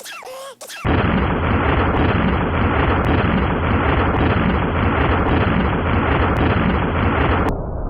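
A loud, harsh explosion-like blast of noise, heavy in the bass, that starts suddenly about a second in and holds steady for several seconds, then turns abruptly duller near the end. Just before it comes a quick run of short squeaky sounds, each falling in pitch.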